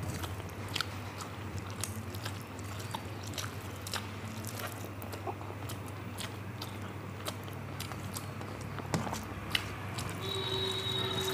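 A person chewing a mouthful of rice and curry close to the microphone, with scattered short wet mouth clicks. A low steady hum runs underneath, and a steady tone begins about ten seconds in.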